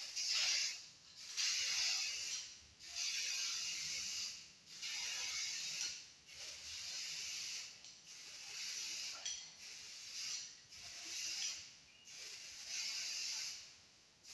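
Aerosol spray can hissing in short bursts of about a second each, one after another, as paint is sprayed onto a bicycle frame.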